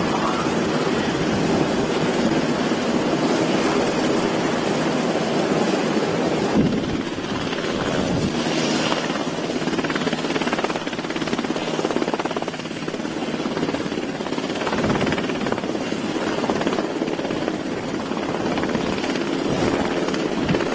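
Navy Seahawk helicopter's rotors and turbine engines running steadily while it hovers with a slung cargo load during vertical replenishment. The sound shifts in character about six seconds in.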